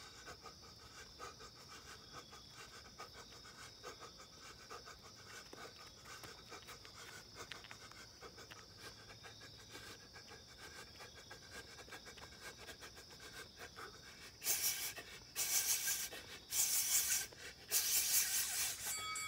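Faint steady chirring of insects. About three-quarters of the way in, four loud hissing bursts, each lasting about a second.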